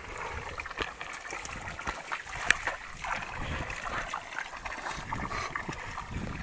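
Spring water running from a pipe into a stone trough, with hands splashing under the spout. A sharp click about two and a half seconds in.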